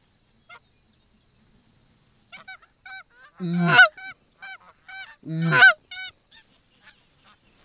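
A flock of Canada geese honking: a single honk half a second in, then a steady run of short honks from about two seconds in, with two much louder, drawn-out honks around the middle.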